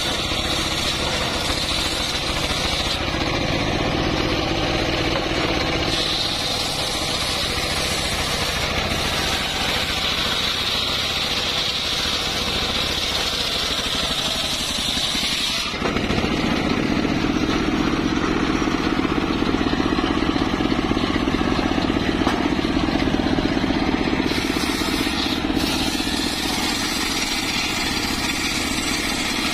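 Engine-driven homemade circular sawmill running steadily, its blade cutting through an old mahogany log. The sound changes abruptly about halfway through.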